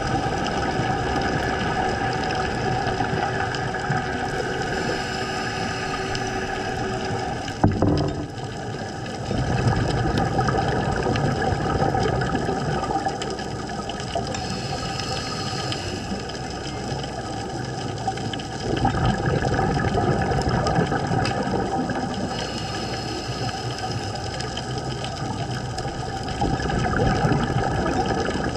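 Muffled steady hum of a boat engine with water noise around it, as heard by an underwater camera. There is a single sharp knock about eight seconds in.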